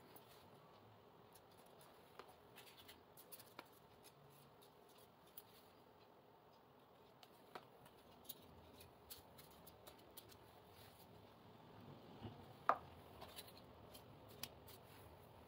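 Very faint handling of paper petals: light rustling and scattered small clicks as the petals are pressed and glued together, with one sharper click late on.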